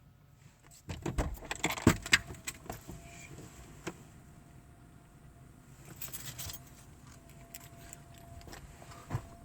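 A quick run of clattering clicks and rattles, about two seconds long, starting a second in, then quieter handling noise with a short rustle later. A faint steady tone runs underneath.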